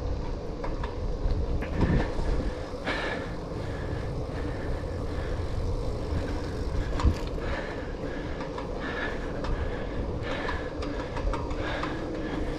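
A 700c single-speed bicycle rolling along an asphalt street: steady tyre and riding noise, with a few sharp knocks and rattles from the bike over cracks in the road, the clearest about three and seven seconds in.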